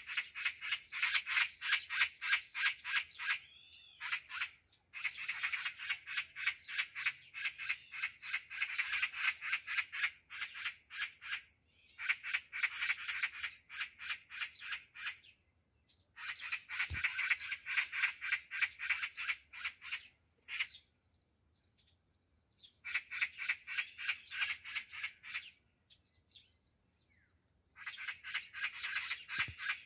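Several Oriental magpies giving their harsh rattling chatter, the alarm call they keep up as a person closes in. The calls come in bouts of a few seconds each, with short pauses between.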